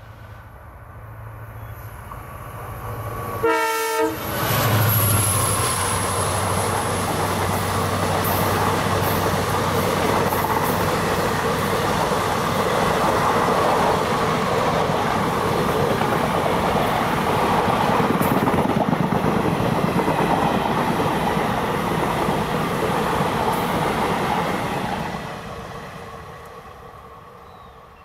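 A passenger train passes at speed. The locomotive's low, steady engine note approaches and goes by with a brief loud burst about four seconds in. The coaches' wheels then clatter over the rail joints for about twenty seconds before the sound fades away near the end.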